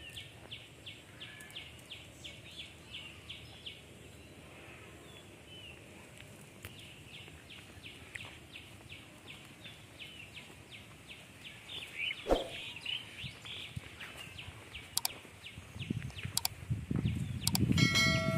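A bird calling over and over, short chirps about twice a second, with one louder sliding call about two-thirds of the way through. Near the end come rustling thumps of footsteps through grass and a brief ringing tone.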